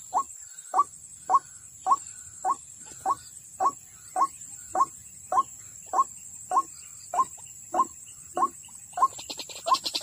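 White-breasted waterhen call: a short rising note repeated steadily, about one and a half times a second.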